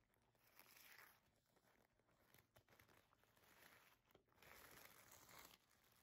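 Faint rustle and crinkle of white wrapping paper being pulled off a leather handbag: a short bit about a second in and a longer one just past halfway, otherwise near silence.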